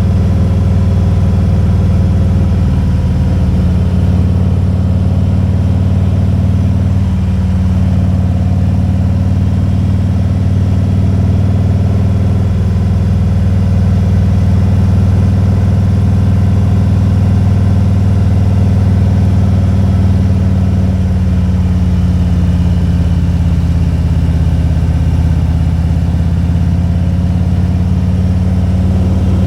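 Motorcycle engine running steadily while riding, a deep even drone whose pitch shifts slightly a few times as the throttle changes.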